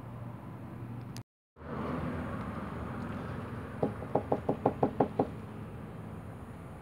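A quick run of about nine sharp knocks, roughly six or seven a second, lasting about a second and a half. Earlier there is a brief cut to dead silence about a second in.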